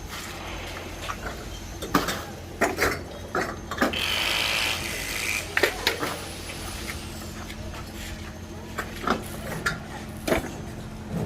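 Steady low engine rumble under scattered knocks and clanks, with a hiss lasting about a second and a half, about four seconds in.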